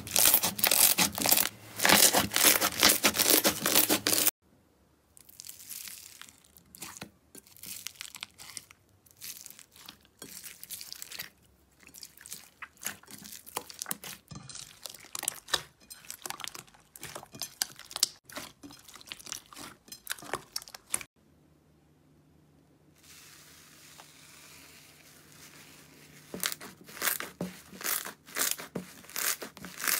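Slime squished and kneaded by hands, making crackling, popping and sticky squelching sounds. The crackling is dense and loud for the first few seconds, turns to softer scattered pops and clicks, stops briefly about three-quarters through, and comes back near the end.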